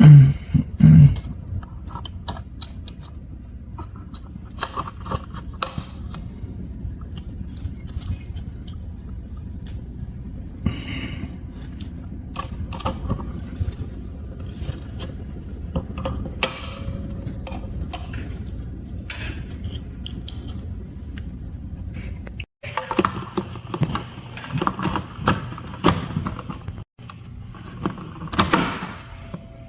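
Handling noise: scattered clicks, light knocks and short scraping rattles over a steady low hum, with two loud thumps right at the start. The sound breaks off about three-quarters of the way through, and the clicking and rustling pick up again after it.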